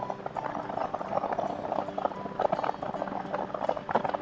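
Cruiser motorcycle engine running steadily at cruising speed, with an uneven crackling rumble over it.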